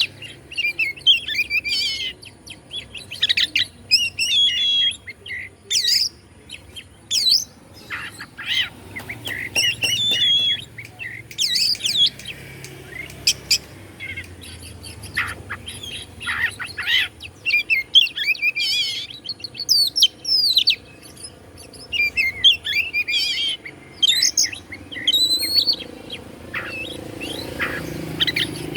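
Oriental magpie-robin (kacer) singing a long, varied song: quick runs of whistles, chirps and sharp gliding notes in short phrases with brief pauses between them.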